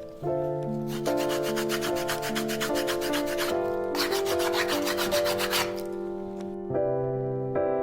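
Sandpaper rubbed over a small piece of wood in quick back-and-forth strokes, in two spells that stop about three and a half seconds in and again near six seconds, over background music.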